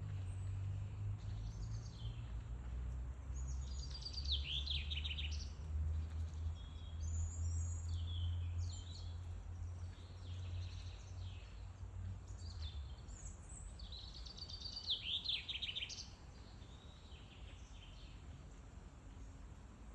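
Wild songbirds singing short, high phrases, two of them ending in fast falling trills, over a low rumble that fades out partway through.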